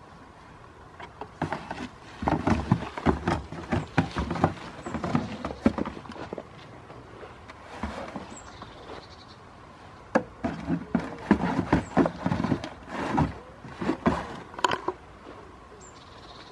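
A goat kid butting and nosing a cardboard box on a wooden pallet: two spells of knocks, scuffs and rattling cardboard, the second starting about ten seconds in.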